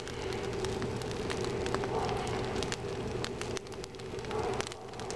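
An open fire of sticks and wet leaves crackling, with many sharp pops over a steady hiss and a faint steady hum underneath.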